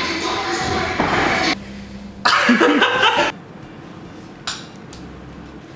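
A dense wash of sound stops abruptly about a second and a half in. About a second later comes a short, loud burst of a man's voice, and after it a quiet room with two faint clicks.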